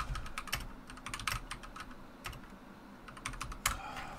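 Typing on a computer keyboard: irregular, fairly quiet key clicks, several a second in short runs, as a comment is typed.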